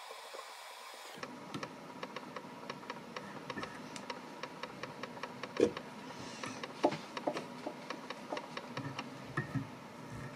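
Small irregular clicks and ticks of hands working thread and materials at a fly-tying vise, over a low steady hum that comes in about a second in. A few of the clicks in the second half are louder.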